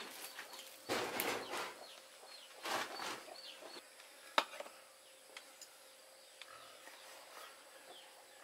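Handling and rustling noises in the first few seconds, then one sharp knock of a cleaver on a wooden cutting board, the loudest sound, followed by a few faint light taps as the cleaver works on pork. Short bird chirps over a steady insect drone in the background.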